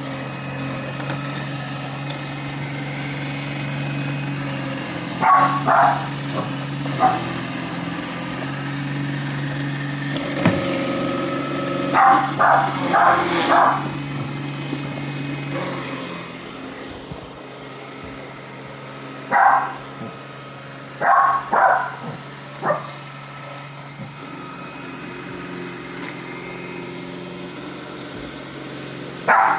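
A dog barking in short bursts of two to four barks, several times over, at a Roomba robot vacuum. Underneath, the Roomba's motor and brushes run with a steady hum.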